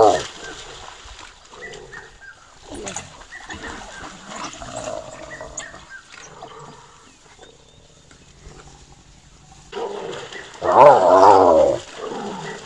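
A spotted hyena being attacked by African wild dogs gives a loud, wavering cry about a second long near the end, after a stretch of quieter splashing and scuffling in shallow water.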